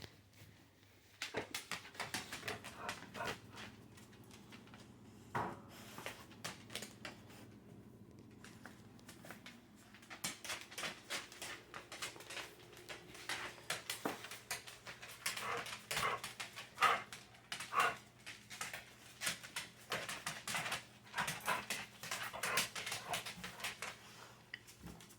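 Pet dog whining and yowling in a long run of short, quick, pitched vocalizations, the 'talking' noises a dog makes to get its owner's attention.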